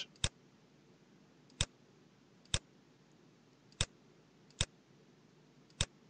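Computer mouse button clicking, about six sharp single clicks at uneven intervals.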